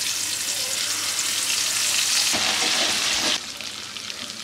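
Masala-coated karimeen (pearl spot) fish shallow-frying in hot oil in a pan, sizzling steadily, then dropping to a softer sizzle a little over three seconds in.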